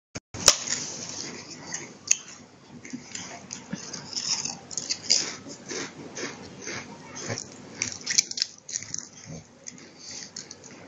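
A dog crunching and chewing Pringles potato crisps, irregular crackly bites a few times a second.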